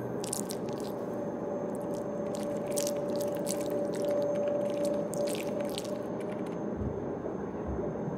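Experimental electronic score: a steady wash of noise with one held mid-pitched tone, and a scatter of short high crackles through the first six seconds.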